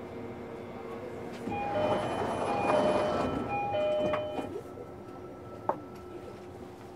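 Onboard running sound of a JR Kyushu 305 series electric train: the VVVF inverter and permanent-magnet motors give a set of steady tones that jump between fixed pitches as the running noise swells and then eases off. A single sharp click comes near the end.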